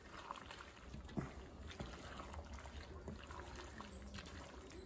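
A spoon stirring bow-tie pasta through thick cream sauce in an enamelled cast-iron pot: faint wet stirring with scattered light clicks of the spoon against the pot, one a little louder about a second in.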